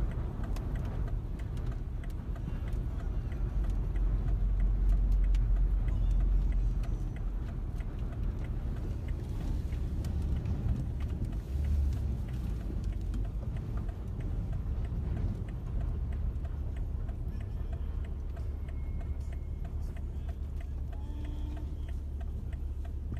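Steady low road and wind rumble inside a moving car's cabin, swelling from about 4 to 7 seconds in, with scattered faint ticks.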